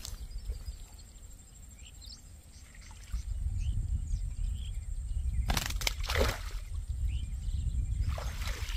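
Water splashing and sloshing as a freshly caught fish is put into a mesh keep net and the net is lowered into the pond, in two bursts, the first about halfway through and the second near the end. Faint bird chirps come early on, and a low rumble starts a few seconds in.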